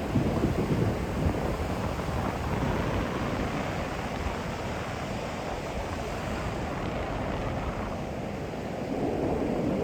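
Heavy sea surf breaking and washing ashore in strong wind, with a steady low rumble of wind on the microphone.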